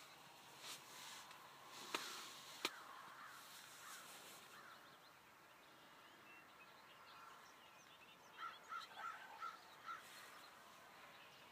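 Quiet open-field ambience with faint high bird chirps. Two sharp clicks come about two seconds in, and a run of five short, evenly spaced calls comes near the end.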